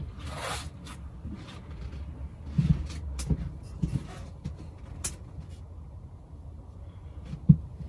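Handling noise close to the microphone: scattered light knocks and rustles over a low steady rumble, with one sharper knock near the end.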